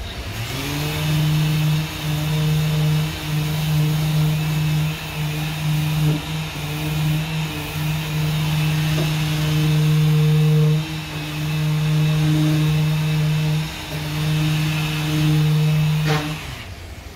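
Small round orbital sander spinning up, then running steadily with a hum and hiss as it sands body filler on a car's rear quarter panel. Its loudness wavers as the pad is worked over the panel, and it shuts off near the end.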